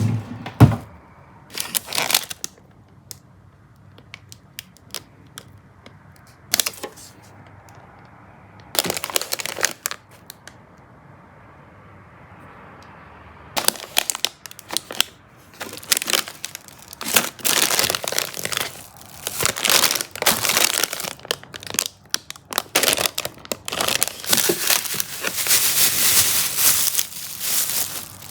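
Plastic packaging crinkling and crackling as it is handled. There are a few short bursts at first, then nearly continuous crinkling from about halfway through.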